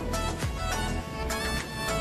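Background music with a steady beat, about four beats a second, under a held melody.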